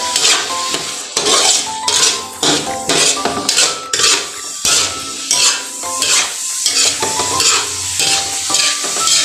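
Spatula scraping and stirring corn, carrots and green peas around a metal wok in repeated strokes, about two a second, over the sizzle of the vegetables frying.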